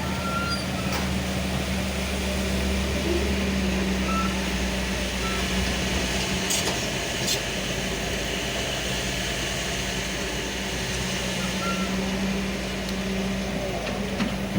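Kobelco hydraulic excavator's diesel engine running steadily under work, its low note shifting a little about halfway, with two short clicks near the middle.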